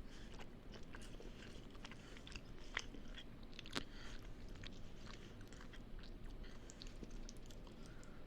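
A person chewing and biting a mouthful of burrito, irregular small wet mouth clicks, with two sharper clicks about three and four seconds in.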